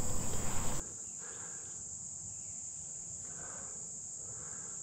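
Steady high-pitched drone of insects. A louder rustling sound in the first second stops abruptly.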